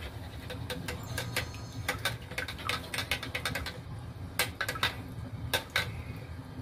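Ceramic soup spoon clinking and scraping against a steel ladle and wok, a run of irregular light clicks, while oyster sauce is worked off the spoon into the broth. A low steady hum underneath.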